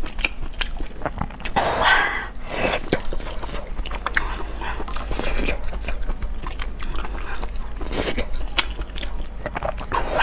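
Close-miked eating sounds: chewing and slurping hot pot food, with many short wet mouth clicks.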